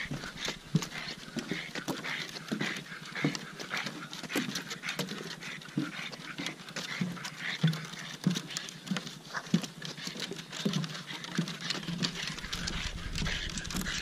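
Footsteps on a wooden boardwalk, with the clicks of a pug's claws on the boards and the pug's panting.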